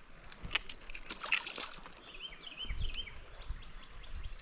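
Creek water running and trickling, with scattered small knocks and handling clicks in the first half and a few short bird chirps past the middle. A low rumble comes in over the second half.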